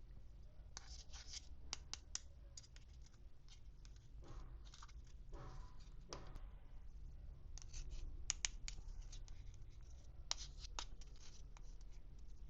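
Hands unpacking toy packaging and small plastic pieces: sharp plastic clicks and taps, with a couple of longer scratching, rubbing sounds in the middle, close to the microphone over a faint low hum.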